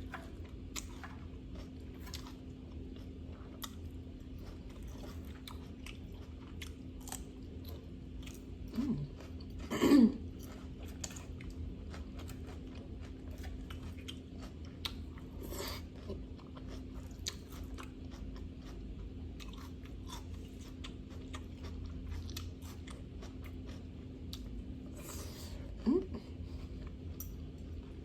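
Close-miked chewing of salad vegetables and salmon: a steady run of small crunches and wet mouth clicks, with a few brief hums from the eater about nine, ten and twenty-six seconds in.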